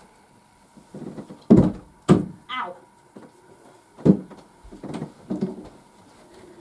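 A series of heavy thuds and knocks as things are handled and set down while a room's furniture is moved. The two loudest come close together about a second and a half in, followed by a brief falling squeak.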